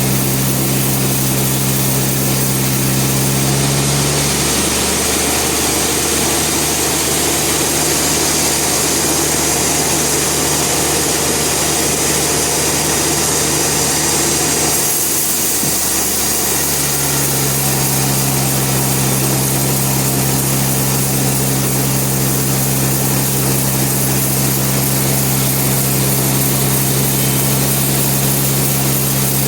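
Band sawmill running steadily with a constant hum. From about four seconds in until about sixteen seconds the hum drops back and a rougher, noisier sound takes over, then the steady hum returns.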